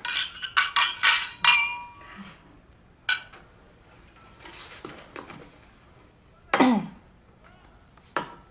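Wine glasses clinking together in a toast: a quick run of sharp clinks with ringing tones in the first two seconds. Then a lone click, and later a brief falling sound at the table.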